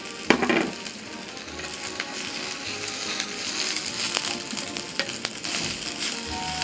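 Food sizzling and frying in a pan, getting louder from about two seconds in. A sharp clunk sounds right at the start, and there are a few small clicks.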